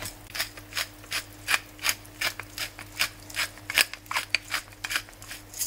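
A hand pepper mill grinding black peppercorns: a steady run of short ratcheting clicks, about three a second.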